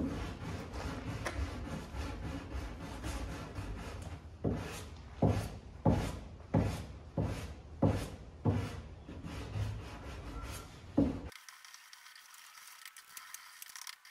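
Hand sanding of fairing compound on the underside of a fibreglass boat davit, the abrasive rubbing back and forth. It starts as a steady scrub, then settles into strong strokes at about one and a half a second, and stops abruptly near the end, leaving only a faint hiss.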